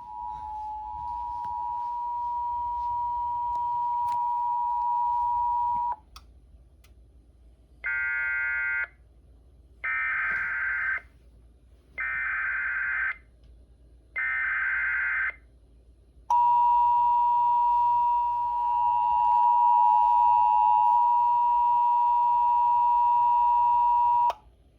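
Emergency Alert System tones: the two-tone attention signal sounds steadily for about six seconds. Four one-second bursts of warbling SAME data header follow, about two seconds apart. Then the two-tone attention signal sounds again for about eight seconds and cuts off near the end.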